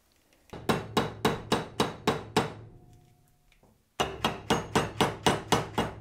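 A hammer striking a metal rivet setter to set rivets in leather: two runs of quick, even metal taps, about seven and then about eight, roughly three a second.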